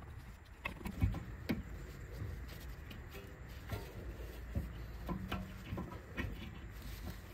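Light metal clicks and knocks, scattered every second or so, as the rear brake caliper of an 8th-generation Honda Civic is slid down over new brake pads and a disc and seated on its holding bracket.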